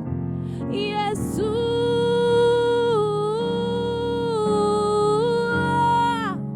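A solo voice sings long, held notes in worship, stepping between a few pitches and sliding down near the end, over sustained keyboard chords.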